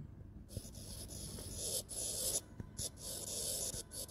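S Pen stylus tip scratching across a Samsung Galaxy Note10 touchscreen in a run of short handwriting strokes, starting about half a second in, with brief pauses between strokes.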